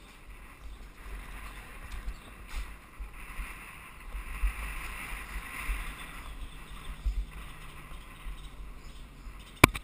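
Wind and rolling noise on a downhill mountain bike's helmet camera: a steady hiss with uneven low rumbling gusts, and a sharp knock near the end.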